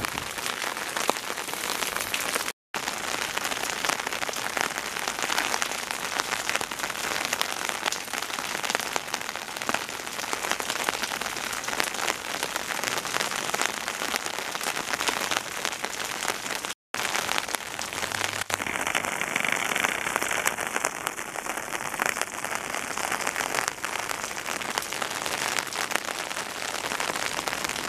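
Steady rain pattering, a dense even hiss of many small drops, cutting out briefly twice.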